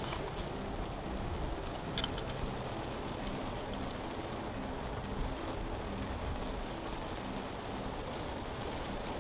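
Water from a garden hose spraying onto a stretched tarp rain catcher, a steady pattering like heavy rain, with a brief click about two seconds in.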